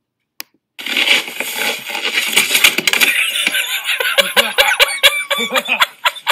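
Audio of the fails-compilation video starting up: a dense, noisy clatter with many rapid sharp clicks and knocks, beginning about a second in after a short silence.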